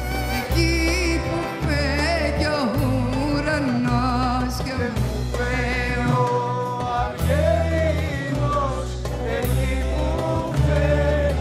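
Live Greek popular music from a band: an ornamented melody line with heavy vibrato over a sustained bass.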